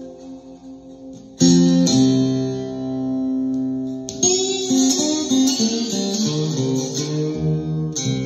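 Ovation Koa acoustic guitar in open C tuning (C-G-C-G-C-E), played with a ceramic slide. A chord rings and fades, and a loud chord is struck about a second and a half in. From about four seconds in comes a run of slid notes gliding in pitch, and another chord is struck near the end.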